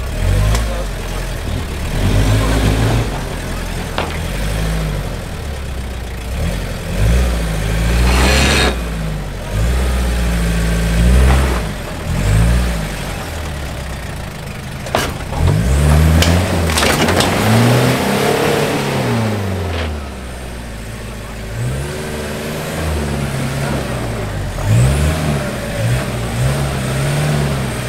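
Off-road 4x4's engine revving in short bursts, its pitch climbing and dropping again and again, with a few sharp knocks along the way.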